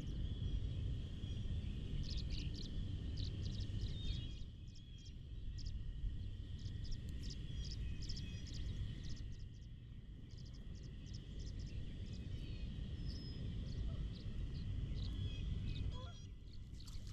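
Outdoor ambience at the water: wind rumbling on the microphone, with a dense chorus of short, rapid high chirps and a steady high trill from small animals behind it.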